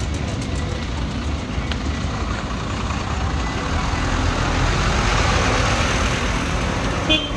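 Steady low engine rumble with street noise; a hiss rises a little about five seconds in and fades again.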